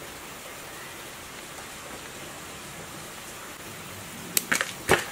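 Steady background hiss, then about four and a half seconds in a quick cluster of three or four sharp clicks as hand wire strippers bite into and strip the insulation off a generator stator lead wire.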